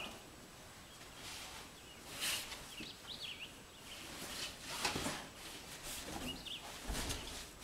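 Intermittent rustling and shuffling of belongings being handled, with a few faint bird chirps.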